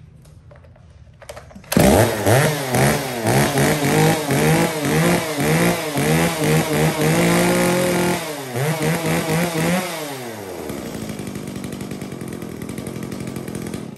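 Echo 40 cc two-stroke chainsaw starting up about two seconds in, then revved up and down repeatedly on the throttle and held briefly at high revs. It then settles to a steady idle and stops abruptly at the end.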